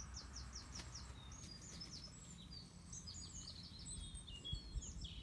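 A songbird singing a long, continuous run of high, quick chirping and warbling notes, over a steady low rumble.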